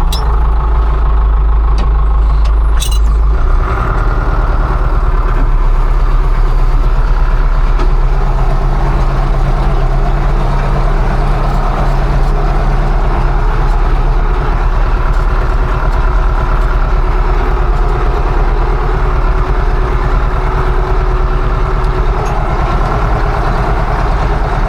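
Combine harvester's diesel engine running steadily under load, with a few light clicks in the first three seconds.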